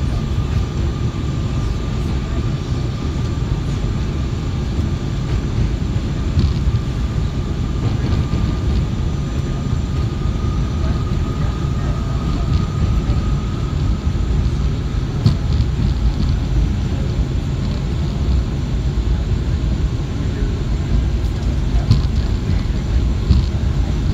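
New York City subway J train running over the Williamsburg Bridge, heard from inside the car: a steady, loud low rumble of wheels on rail, with a thin high whine that fades in and out and an occasional faint click.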